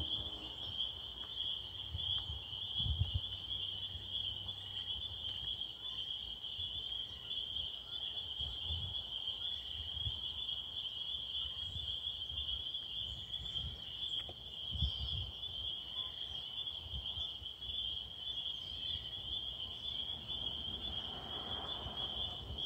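A steady, high-pitched chorus of small calling animals, one unbroken even pitch, with a few low bumps on the microphone.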